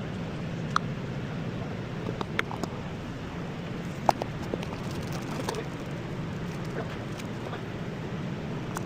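Engine oil draining from a BMW S55 engine into a drain pan, a steady pattering stream, with a few light clicks and taps scattered through it, the sharpest about four seconds in.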